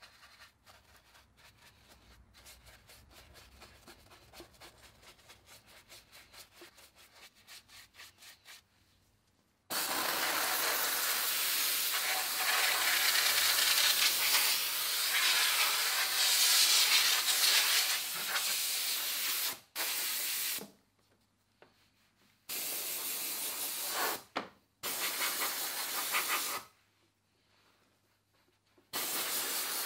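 A detailing brush scrubs softly and rhythmically on the foam-covered plastic engine cover. About ten seconds in, a handheld steam cleaner's wand starts hissing loudly as it blasts steam over the engine bay. The steam runs steadily for about ten seconds, then comes in several shorter blasts with brief silences between.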